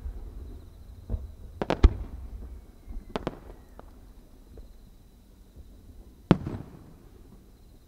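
Japanese aerial fireworks shells going off: sharp bangs, each with a short echo. There is a double bang about two seconds in, two lighter bangs a second later, and a loud single bang near the end.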